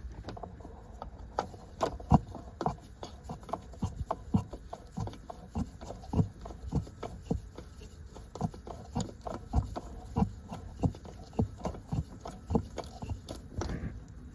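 A run of dull knocks and clicks, about two a second and slightly uneven, that keeps on steadily.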